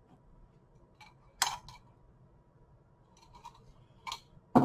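Scissors clinking in a small desk cup as it is handled: a few scattered sharp clicks, the loudest about a second and a half in, and a duller knock near the end.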